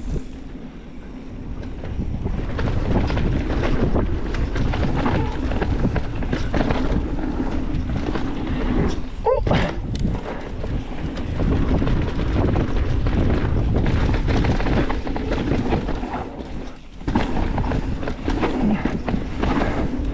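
Specialized Kenevo SL electric mountain bike riding fast down a dirt trail: tyres on dirt, with the bike rattling and knocking over bumps under a steady rush of wind on the microphone. There is a brief rising squeal about halfway through.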